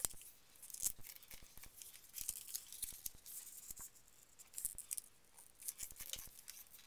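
A square sheet of paper being folded along its diagonals and creased by hand: rustling and crinkling in short, irregular bursts, with a few sharp clicks.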